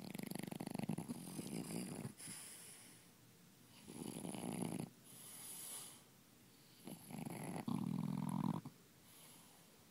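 French Bulldog snoring in its sleep: three loud, rattling snores, each followed by a quieter breath.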